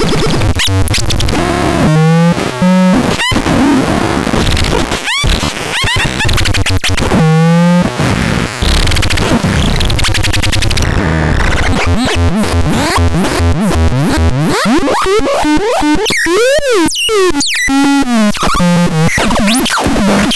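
Loud, chaotic electronic synthesizer noise: harsh noisy textures with fast clicking pulses, stuttering tones and pitch sweeps that rise and fall, including a rapid up-and-down warble about two-thirds of the way through.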